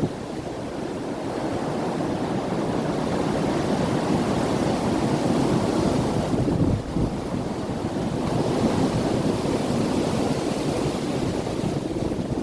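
Strong wind in gusts buffeting the microphone, a dense low rushing that swells, drops off briefly a little past halfway, then picks up again.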